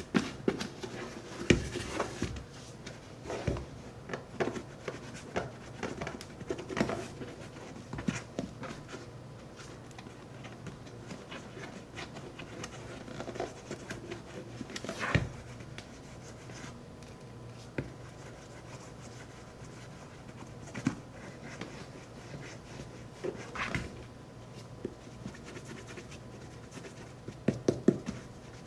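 Shoe cream being rubbed into a leather boot by hand, soft scratchy rubbing with scattered light knocks and taps.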